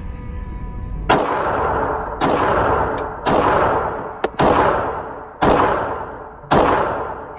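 Six shots from a Diamondback DB380 .380 ACP pocket pistol, fired about a second apart, each with a long echoing tail. A few fainter sharp cracks fall between the shots.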